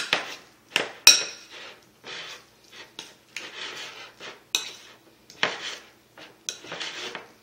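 Metal fork stirring mashed avocado guacamole in a ceramic bowl: irregular clinks and scrapes of the fork against the bowl, roughly one or two a second, the loudest about a second in.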